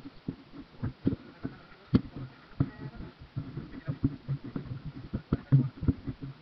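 Irregular light knocks and clicks of hands and utensils on plastic plates, bowls and containers, several a second, during a meal.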